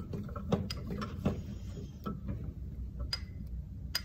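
A small spoon clinking and scraping against a glass measuring cup as mustard is scooped into a honey-vinegar dressing and stirred, in irregular light clicks.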